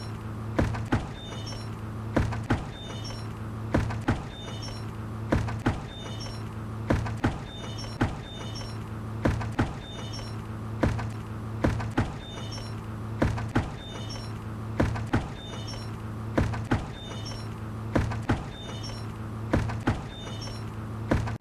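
A bucket knocking and squeaking in a steady repeating rhythm: a pair of sharp knocks about every one and a half seconds, each with short high squeaks, over a steady low hum.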